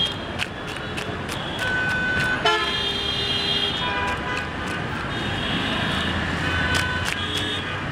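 Several vehicle horns toot over steady street-traffic noise, each lasting about a second and each at its own pitch, with scattered sharp clicks.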